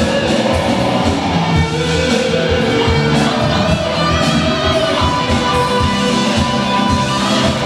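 Live rock band playing, with electric guitars, a drum kit keeping a steady beat and a sung melody line over it.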